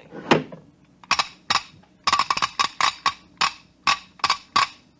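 Radio-drama sound effect of a machine at work: a low thud, then a run of about fifteen sharp mechanical clicks and clacks, irregular and bunched quickly around the middle. This is the robot lifeboat preparing a meal.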